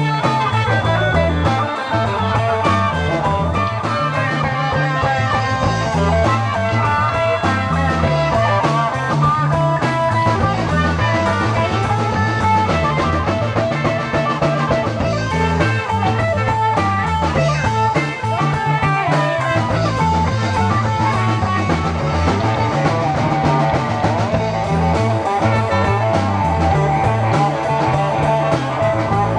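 Live rock band playing loud: a trumpet over electric guitar, electric bass and drum kit.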